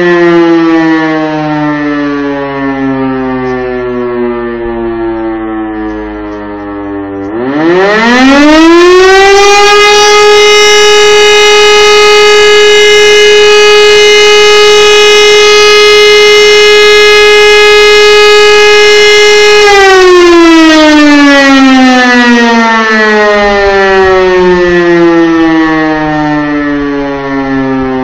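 E57 electro-mechanical civil-defence siren winding: its wail falls in pitch as the rotor slows, then about seven seconds in it spins up again to a steady high wail held for about twelve seconds, and winds down once more with a slow falling pitch.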